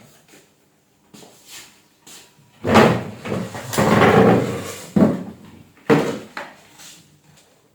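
A series of irregular knocks and handling noises, loudest from about three to five seconds in, with another knock about six seconds in.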